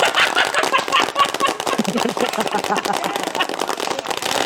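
Homemade crowd applause sound effect built from layered recordings of clapping and cheering: many hands clapping densely and rapidly, with whooping voices mixed in. It is so loud, and it starts suddenly just before this point.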